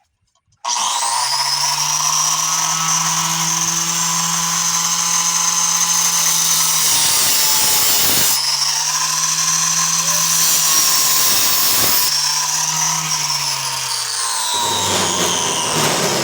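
Angle grinder with a cutoff wheel starting up and running steadily as it cuts an indentation into a brass door knob held in a vise. The running sound dips briefly twice and turns rougher near the end.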